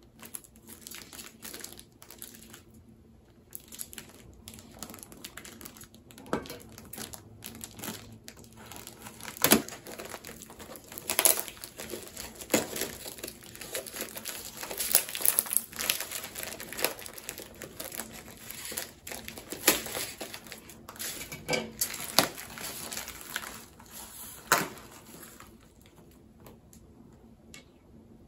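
Plastic or paper packaging being crinkled and pulled apart as a mailed plant parcel is unpacked by hand, with irregular sharp crackles, busiest and loudest through the middle.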